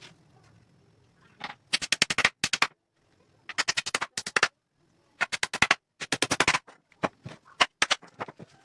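Rapid runs of sharp knocks, about ten a second, each run lasting about a second with short pauses between, then scattered single knocks near the end.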